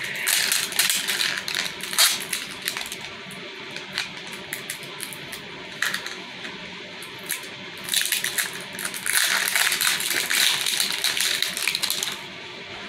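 Plastic wrapping on a Mini Brands capsule ball being peeled and torn off by hand, crinkling in two long stretches, at the start and again from about eight seconds in, with scattered clicks and taps of handling in between.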